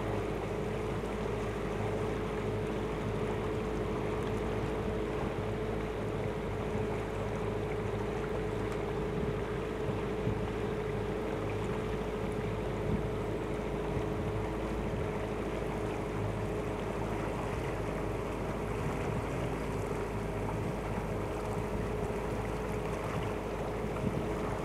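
Small boat's motor running steadily at one even pitch.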